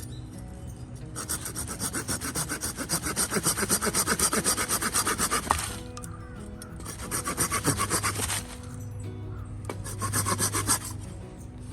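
Hand saw cutting firewood with rapid back-and-forth strokes, about five a second. It comes in three bouts with short pauses between; the first and longest lasts about five seconds.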